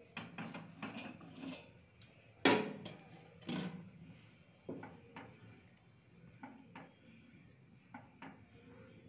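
Wooden spatula scraping and knocking against a frying pan while stirring simmering milk and rice for payesh, an irregular run of strokes with the two loudest a second apart near the middle and lighter, sparser scrapes after.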